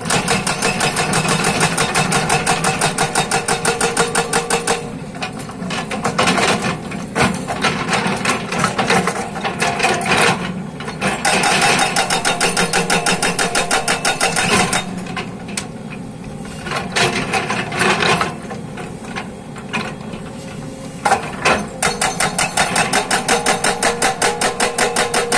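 Hydraulic breaker on a JCB excavator hammering rock, a fast, even run of blows in bursts of a few seconds, with short pauses between bursts where the excavator's engine is heard running.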